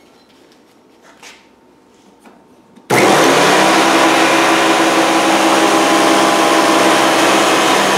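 Thickness planer running: a loud, steady motor whine that cuts in abruptly about three seconds in, as the board is fed through to take off about a 32nd of an inch per pass.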